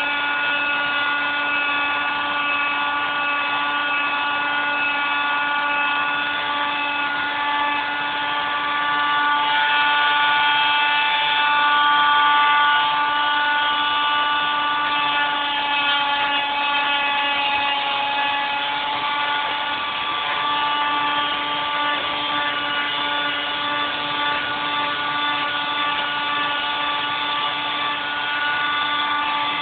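Electric grinder running with a steady whine while it grinds down knots and edges on a dried wooden walking stick, a little louder for a few seconds around the middle.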